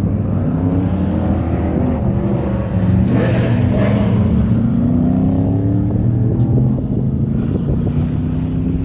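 Race pickup truck's engine running hard on an autocross course, its pitch gliding up and down as it accelerates and eases off. It is loudest about three to four seconds in.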